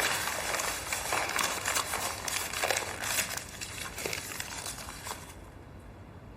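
Dense crackling, rustling noise that starts suddenly and stops about five seconds later.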